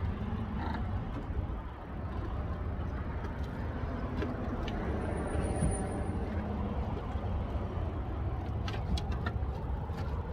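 Steady low outdoor background rumble, with a few light clicks near the end as the plastic air intake tube is handled under the hood.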